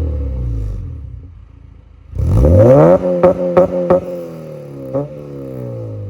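Honda RSX Type-S's K20 four-cylinder engine revved through a catless Skunk2 Alfa header and HKS cat-back exhaust: the revs fall away at first, then a quick sharp blip about two seconds in is the loudest moment, followed by several sharp cracks from the exhaust as the revs drop back to a steady idle.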